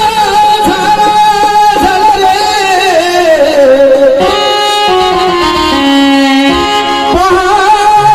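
Marathi folk song playing loudly: a wavering melody line that then steps through a run of held notes in the middle.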